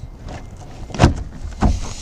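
Two knocks, about a second in and again just over half a second later: a truck's interior door panel being knocked against the door as it is worked onto its slot hangers.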